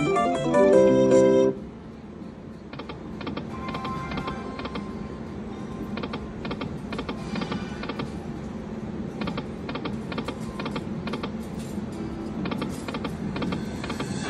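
Video slot machine playing its win-tally jingle, a fast run of bright electronic tones, which cuts off about a second and a half in. After that comes a quieter, uneven patter of short clicks from the machine over steady casino background noise.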